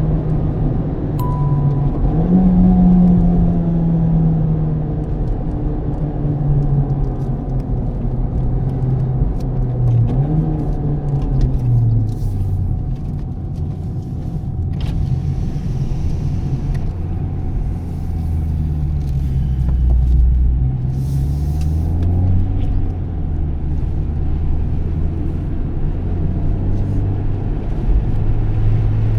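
Honda Civic Type R FK8's turbocharged 2.0-litre four-cylinder engine running under way, its pitch rising and falling with throttle and gear changes. The note is lower and deeper through the middle stretch and climbs again near the end.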